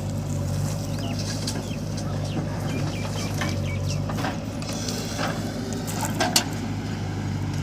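Diesel machine engine running steadily at a low idle, with birds calling in short high chirps over it and a sharp click about six seconds in.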